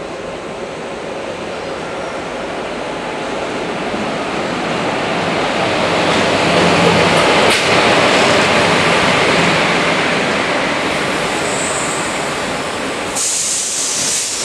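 Electric-hauled passenger train rolling into the station past the platform. The rumble of the locomotive and coaches grows louder to a peak about halfway, with a single sharp clank, and eases as the coaches go by. Near the end a high-pitched squeal sets in as the train slows.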